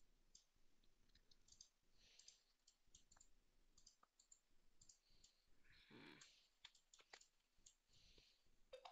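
Near silence with faint, scattered clicks of a computer mouse and keyboard.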